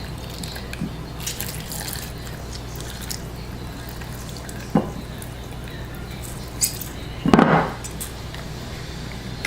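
A lemon being squeezed by hand, its juice dripping into a bowl, over a steady low hum. There is a short knock about five seconds in and a louder bump a couple of seconds later.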